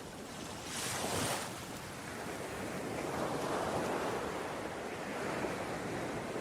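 Ocean surf: waves washing in continuously, with a hissing wave break about a second in and a broader swell of surging water a little later. Some wind on the microphone.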